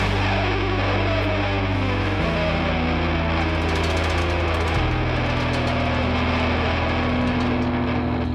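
Background rock music: distorted electric guitar holding long low chords that change twice.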